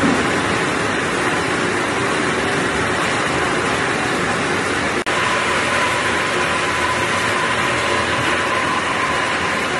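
Steady noise of cassava washing and peeling machinery: water spraying and churning over the roots in the washing tank, with motors running. After a brief dropout about halfway, the machine noise goes on with a steady whine added.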